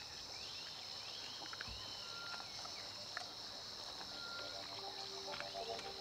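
Forest ambience: a steady high-pitched insect chorus, with scattered short bird chirps and whistles over it.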